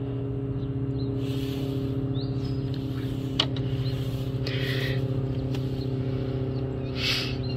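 A steady low mechanical hum with a pitched drone, with one sharp click about three and a half seconds in.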